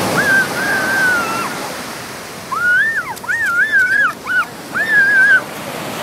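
Small surf breaking and washing up a sandy beach, with a series of high, thin, wavering cries over it in two bursts, one early and a longer run of rising-and-falling calls after about two and a half seconds.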